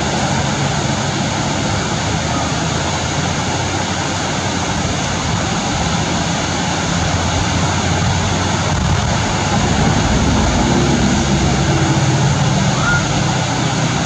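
Steady rushing noise of a large waterfall, loud and even throughout.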